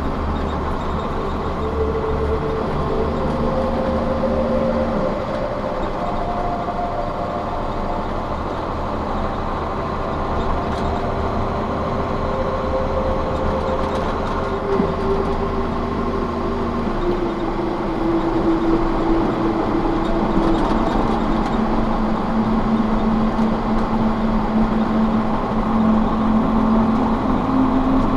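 Heavy truck's engine drone and road noise heard inside the cab while cruising on the highway. The engine's tones step to a new pitch a few times.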